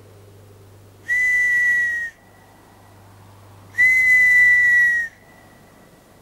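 Two long, high whistle notes blown about two and a half seconds apart, each lasting about a second. Each holds one steady pitch with breathy air noise and dips slightly as it ends.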